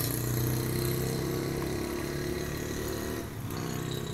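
A vehicle engine running steadily with a low hum, its pitch shifting slightly about three seconds in.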